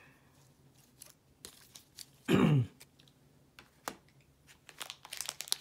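Light clicks and taps of plastic-sleeved trading cards being handled and set down on a wooden table, becoming busier near the end. About halfway through, a short vocal noise from the person, like a throat clear.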